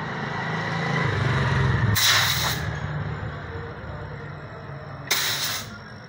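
Refrigerator compressor running with a low hum, and compressed air hissing out of the open end of the copper pipe in two short bursts, about two seconds and five seconds in. This is the check that the compressor is building pressure, and it is pushing it out properly.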